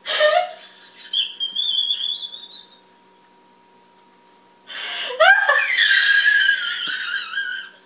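A woman's laughing attack: high-pitched, squealing, wheezy laughter. A short burst comes first, then a longer bout, then a silent pause, and a louder bout runs from about halfway in.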